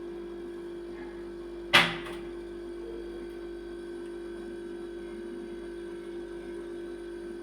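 Samsung refrigerator compressor running under test with a steady electrical hum. Less than two seconds in there is one short, sharp hissing burst that fades within about half a second.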